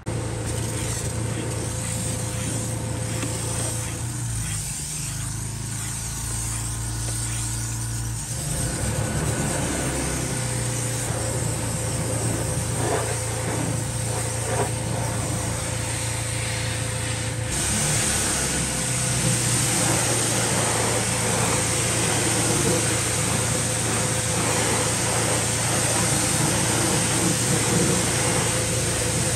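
Pressure washer's small engine running steadily. About halfway through, the hiss of its wand spraying water onto a car wheel joins it.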